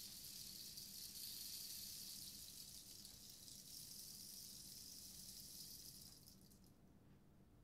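Rain stick tilted slowly, its grains trickling down inside the wooden tube in a soft, steady hiss of gentle rain sounds, fading out about six seconds in.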